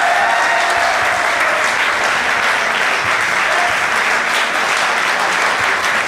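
An audience applauding, with a few voices calling out over the clapping in the first second.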